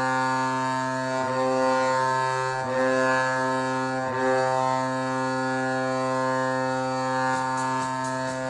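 Colorado Avalanche arena goal horn sounding: a loud, long, steady many-toned blast with a siren wailing alongside it and dipping in pitch a few times. Near the end the goal song's electronic beat comes in over it.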